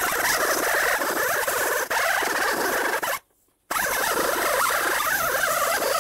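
Small abrasive disc on a rotary power tool grinding rust off a steel wheel hub, a steady high scraping whirr. It cuts out for about half a second a little past the middle, then starts again.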